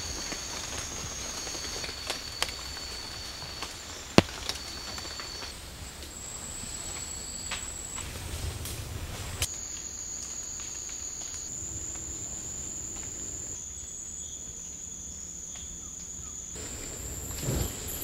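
Rainforest insects calling in steady, high-pitched continuous tones, the pitch shifting a few times, with scattered sharp clicks and one loud click about four seconds in.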